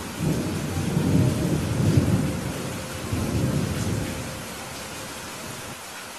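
Steady rain with a roll of thunder that rumbles in just after the start, swells twice and dies away about four seconds in.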